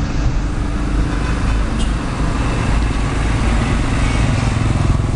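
Steady low rumble of road traffic, with bus and motorcycle engines running past. No horn is heard.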